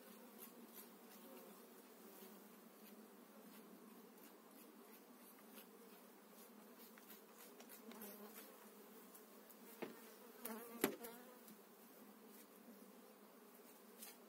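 Faint steady buzzing of a honeybee colony around an open hive. A few sharp clicks or knocks come about two-thirds of the way through.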